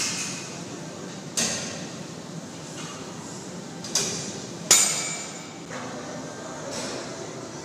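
Metal gym weights clanking: four sharp metallic clanks with a short ring, the loudest a little over halfway through.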